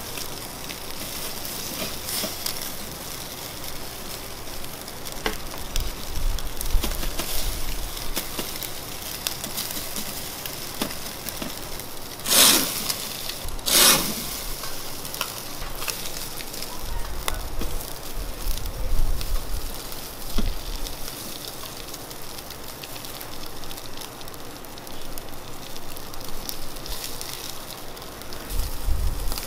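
Chicken thighs sizzling on a wire grill over hot charcoal, a steady sizzle full of small crackles and pops. Twice, around the middle, there is a short, much louder hiss.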